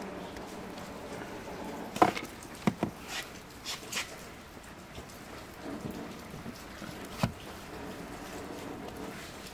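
Knocks and clicks of a scooter's lead-acid battery being handled and pushed back into its plastic compartment. The sharpest knock comes about two seconds in, a quick cluster follows over the next two seconds, and one more comes about seven seconds in, over a steady faint hiss.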